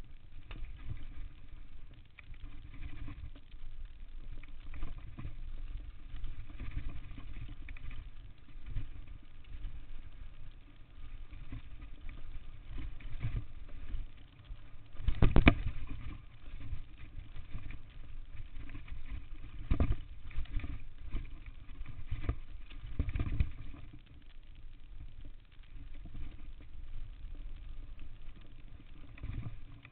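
Downhill mountain bike running fast over a dirt trail: wind rush on the chest-mounted camera and a steady rumble of tyres and rattling bike, with sharp knocks over bumps, the loudest about halfway through and a few more soon after.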